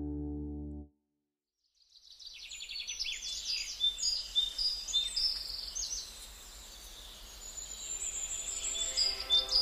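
A sustained piano chord fades and cuts off about a second in. After a brief silence, songbirds fade in with many quick high chirps and trills, and soft piano music comes back in under them near the end.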